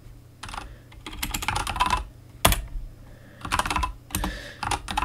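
Typing on a computer keyboard: short bursts of keystrokes, with one harder single key press about two and a half seconds in.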